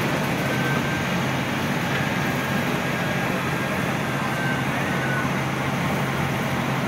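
Cab interior of a heavily loaded International DT466 inline-six turbodiesel school bus with an Allison 2500 automatic cruising steadily, with a steady engine drone and road noise. A faint high turbo whistle comes and goes several times.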